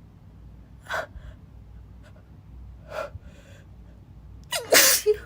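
A woman's two short gasping inhales, about two seconds apart, building up to a loud sneeze near the end.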